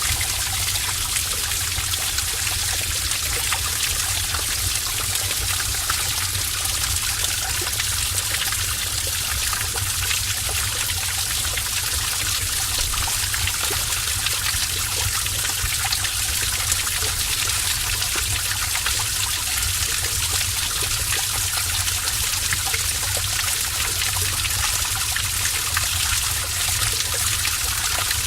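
Heavy stream of water rushing and splashing steadily in a cave, with a continuous hiss of spray and an underlying low rumble.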